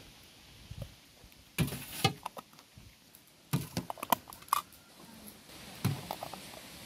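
Full glass jars clinking and knocking against each other and on a metal tray as they are set down and turned upside down, the clinks ringing briefly. A couple come about a second and a half in, a quick run of them in the middle, and a few more near the end.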